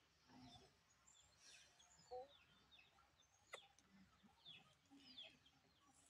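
Near silence with faint, scattered bird chirps, a short soft call about two seconds in and a thin click about three and a half seconds in.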